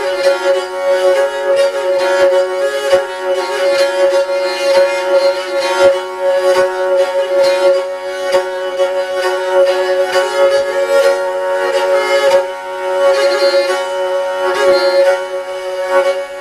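Jouhikko, a bowed lyre with horsehair strings, played with a bow: a melody line moving on one string over a steady two-note drone from the other strings.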